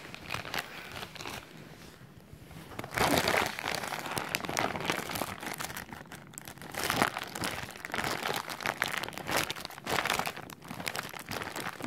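Package wrapping being gripped and pulled at by hand, crinkling and rustling irregularly, with a quieter stretch about two seconds in.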